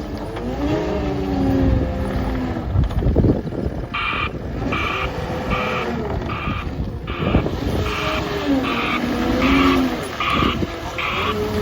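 Caterpillar 259D3 compact track loader's diesel engine revving up and down, with a few knocks near the three-second mark. From about four seconds in, its backup alarm beeps about twice a second as the machine reverses.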